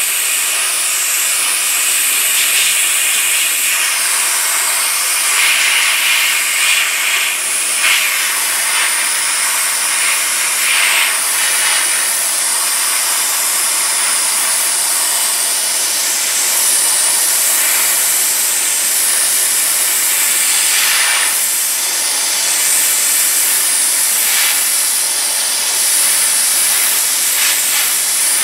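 Handheld sandblasting gun running on compressed air, blasting abrasive grit against a car fender's flange: a loud, continuous hiss of air and grit. The gritty rasp swells at moments as the gun is moved over the metal.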